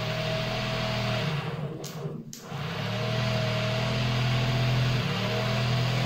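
Rewound washing-machine motor run as a generator, spun by a small electric motor on a shared shaft, running with a steady hum and a higher wavering whine while loaded with two lit bulbs. It cuts out briefly about two seconds in and spins back up.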